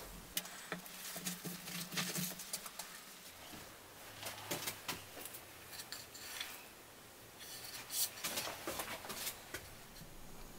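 Scattered light clicks, taps and rustles as a small striped hardwood tea light holder is handled and turned over on a workbench.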